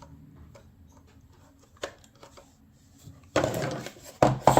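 Hands handling a plastic device: a few faint clicks, then from about three and a half seconds in, loud rubbing and rustling with a couple of sharp knocks.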